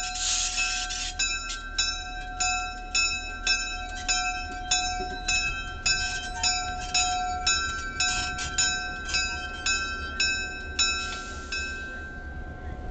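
Diesel locomotive's warning bell ringing steadily at about two strokes a second as the locomotive moves, then stopping near the end.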